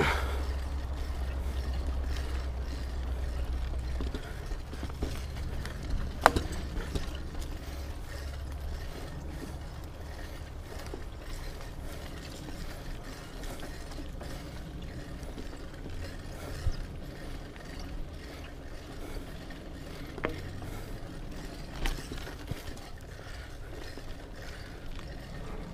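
Mountain bike freehub ratcheting while coasting on a dirt trail, with tyre rumble and a few sharp knocks from the bike over bumps.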